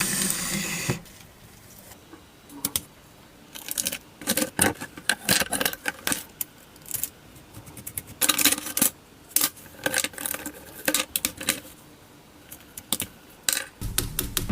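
Small metal objects clinking and jangling in irregular clusters of short, sharp strikes. Near the end a steady low drone starts.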